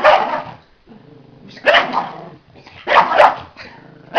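Small shaggy terrier barking excitedly, in sharp barks about once a second, with a quick double bark about three seconds in.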